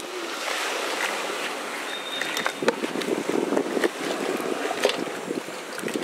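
Hands squishing thick, wet masala paste over raw crabs in a steel bowl: a wet squelching that turns into a dense crackle about halfway through, over a steady hiss.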